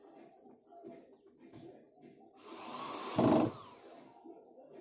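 Cordless drill-driver running once for about a second, speeding up and then winding down, as it drives a screw into a speaker cabinet. It is loudest just before it stops.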